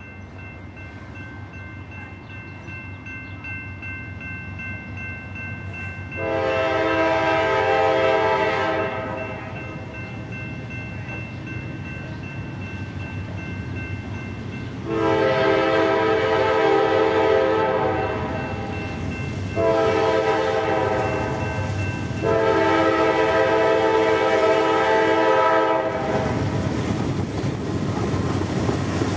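Approaching GE C40-9W diesel locomotive sounding its multi-note air horn in four blasts, the third the shortest, the warning pattern for a grade crossing. Near the end the locomotive's engine and wheels grow loud as it passes close by.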